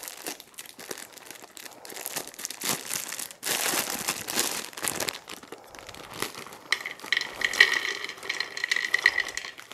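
Plastic bag of shelled black walnut pieces crinkling as it is handled and opened, then, about seven seconds in, the nut pieces start pouring with a ringing rattle into a food processor bowl.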